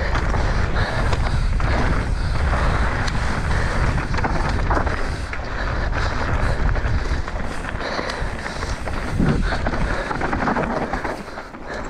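Mountain bike riding fast down a dirt singletrack: tyres rolling over dirt, with scattered knocks from the bike over bumps and wind rushing over the camera microphone.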